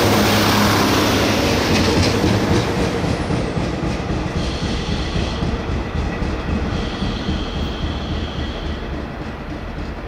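Korean diesel railcar train running on the rails, its rumble and wheel noise loudest at first and fading away over several seconds, with a faint high wheel squeal midway.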